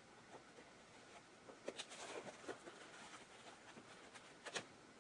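Near silence with faint rustling and a few small ticks as hands work a needle and thread through a fabric patrol cap. The ticks cluster about two seconds in and again near the end.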